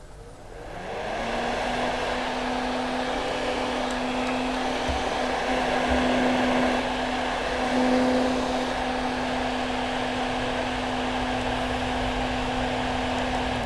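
Household axial exhaust fan running with its motor's shaft bearings freshly oiled. It spins up over the first second or so, then runs steadily, an even hum under the rush of air.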